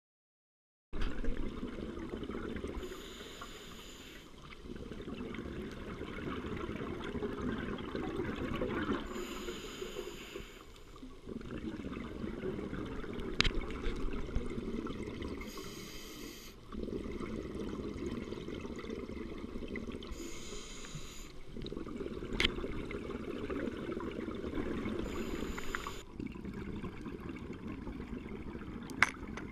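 Scuba diver breathing through a regulator underwater: hissing breaths alternating with bubbling exhalations in a slow cycle about every five to six seconds, muffled by the camera's waterproof housing. A few sharp clicks stand out.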